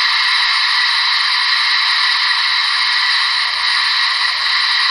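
Steady hiss of steam played through the loudspeaker of the model's ESU LokSound 5 sound decoder. This is the running sound of a Gauge 1 brass model of the Bavarian D XII (class 73) steam locomotive on a rolling test stand. It is an even hiss with no distinct chuff beat.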